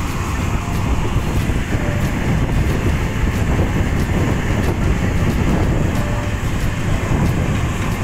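Kubota DC-70 Plus rice combine harvester at work in the field: its diesel engine and threshing machinery make a steady, loud mechanical rumble.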